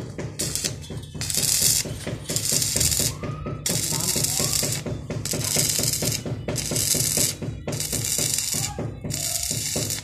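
Stick-welding arc crackling and hissing in repeated bursts of about half a second to a second, with short breaks between, about nine times, as a steel rod welds square steel tubing.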